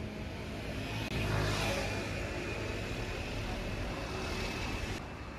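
City street traffic: a motor vehicle passes, swelling about a second in and then easing off over a steady traffic hum.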